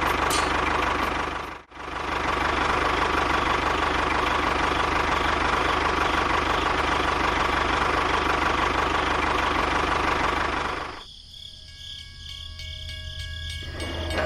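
A motor or engine running steadily. It drops out abruptly for a moment about two seconds in, then stops about eleven seconds in, leaving a few faint steady tones.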